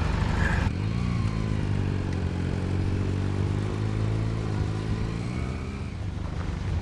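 An engine running with a steady low drone that starts abruptly about a second in; its pitch rises slightly and then sinks back toward the end.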